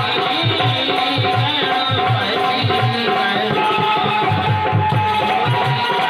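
Instrumental passage of Bundeli devotional folk music: hand drums beat a steady, fast rhythm under a sustained melodic line.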